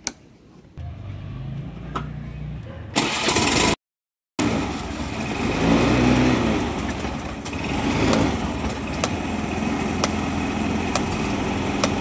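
Honda Activa scooter's single-cylinder four-stroke engine starting and then running at idle, with a few sharp clicks in the second half. The sound drops out briefly about four seconds in.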